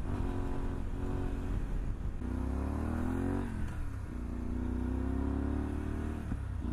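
Honda Varadero 125's 125 cc V-twin engine running under way. Its revs climb for about a second and a half a couple of seconds in, then fall away quickly, and it holds a steady note with a brief dip near the end.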